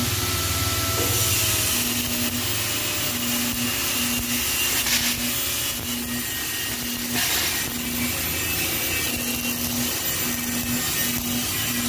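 MIG welding arc crackling and hissing steadily as beads are laid on a steel-tube frame.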